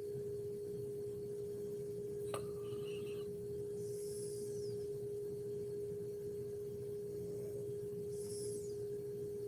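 A steady single-pitched hum, with faint high whistling sounds about four seconds in and again near the end, and one short click a little over two seconds in.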